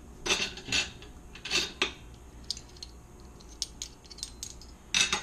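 Metal measuring spoons clinking and rattling in several short bursts, with light clicks in between.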